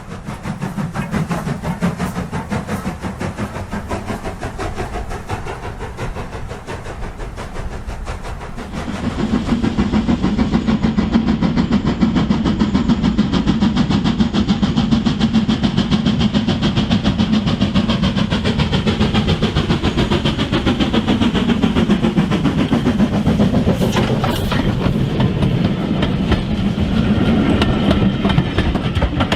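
OO gauge model train running on the layout's track, its wheels clicking rapidly over the rail joints along with the hum of the running gear. It gets louder about nine seconds in as the train comes closer.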